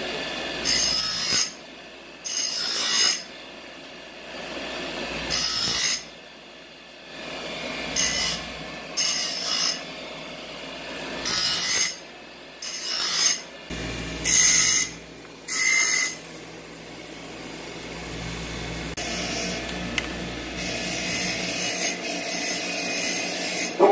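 A grinder clamped in a bench vise, with small metal square plates pressed against its spinning wheel in short passes: about ten loud bursts of high grinding rasp, each half a second to a second long, with the quieter running motor between them.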